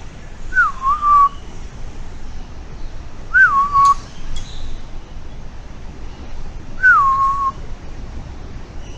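A bird giving a clear whistled call three times, about every three and a half seconds. Each call is a quick rising note that drops to a lower held tone.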